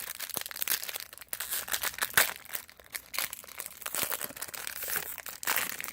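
Trading-card pack wrapper crinkling and tearing as it is opened, an irregular run of crackles with a sharper, louder crackle about two seconds in.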